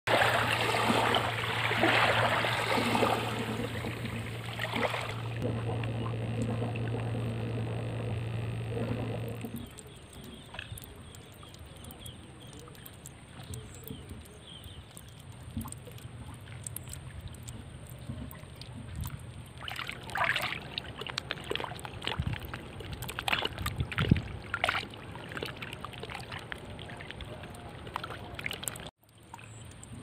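Water washing and lapping along a bank, loud and even, with a steady low hum under it; after about nine seconds it stops suddenly, giving way to a quiet mudflat hiss with scattered light clicks and taps.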